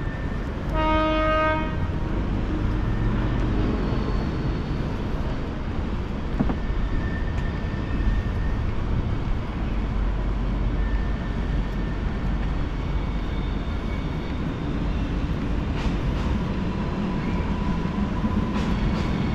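A train rumbling steadily across a steel railway bridge, with one short horn blast about a second in.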